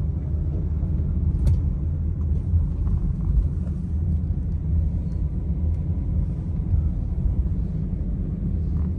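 Steady low rumble of a car driving, engine and tyre noise heard inside the cabin.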